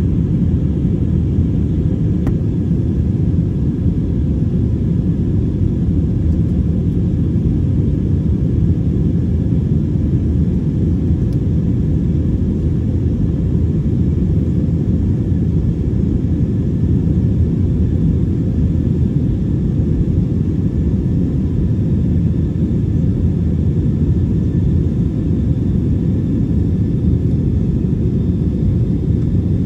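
Steady low rumble of a jet airliner's engines and airflow heard inside the passenger cabin.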